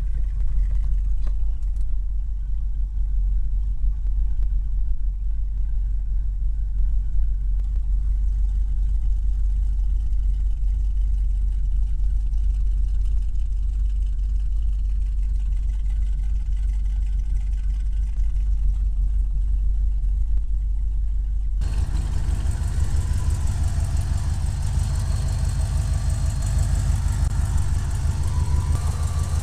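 A 1978 Ford camper van's engine idling steadily. It is a low, muffled rumble heard from inside the van at first, then becomes clearer with more hiss and mechanical clatter about two-thirds of the way through, at the front of the van.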